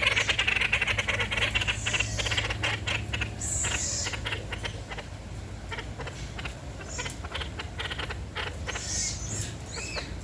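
Parakeets chattering: rapid runs of short chirps, clicks and squawky calls, busiest in the first few seconds.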